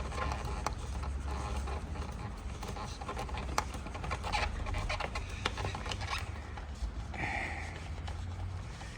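Scattered small clicks and knocks as the rear hugger is worked loose and moved around by hand, over a steady low hum.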